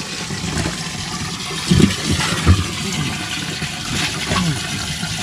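Water sloshing and splashing in a boat's livewell as a hand reaches in and grabs fish, over a steady gush of running water. A couple of louder splashes come about two seconds in.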